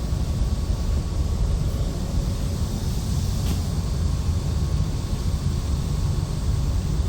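Rooftop ventilation blowers running with a steady low rumble and a faint steady hum, and a brief hiss about three and a half seconds in.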